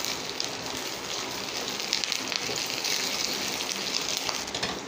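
Chopped onion, cashews, fennel seeds and curry leaves sizzling and crackling in hot oil in a small pan, stirred with a spoon: a tempering being fried until golden brown.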